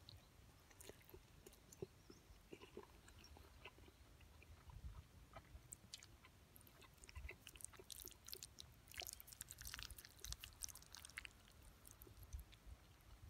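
Faint, wet, sticky squelches and light clicks of a metal fork stirring and twirling creamy spaghetti in an aluminium mess tin, busiest about eight to eleven seconds in.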